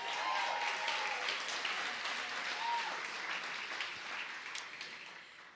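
Audience applauding in a theatre, fading away near the end.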